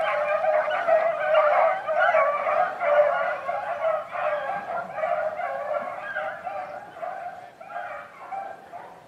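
A pack of beagles in full cry, many hounds baying at once in an overlapping chorus, the sign that they are on a scent and hunting it through cover. The cry grows fainter over the last few seconds.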